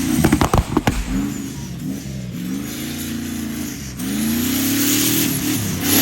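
Off-road racing vehicle's engine revving, its pitch climbing and dropping twice as it accelerates and backs off. In the first second there is a quick series of sharp knocks.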